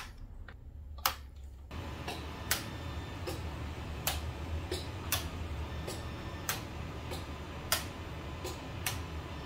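Model railway turnout points snapping over hard under their bistable spring: a string of sharp clicks about once a second, some louder than others. The points are worked by muscle-wire sliders with relays, and a low steady hum sits under the clicks from about two seconds in.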